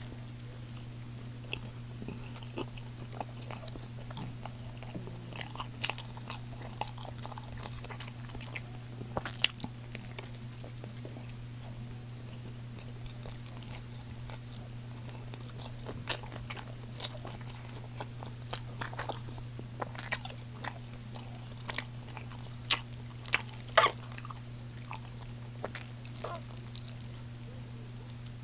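Close-miked biting and chewing of McDonald's food, with crisp crunchy clicks coming in irregular clusters and a few quieter seconds in the middle. A steady low hum runs underneath.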